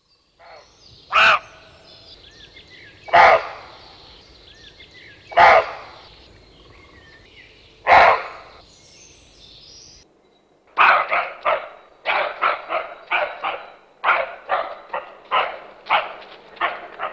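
A dog barking: four loud single barks about two seconds apart, then, after a short pause, a quick run of barks at about three a second. Birds chirp faintly behind.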